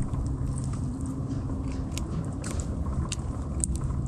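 Scattered light clicks and taps from handling a small mangrove snapper and working the hook out of its mouth, over a low steady rumble.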